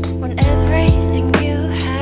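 Lo-fi background music: held chords over a slow, soft beat of kick drum and snare.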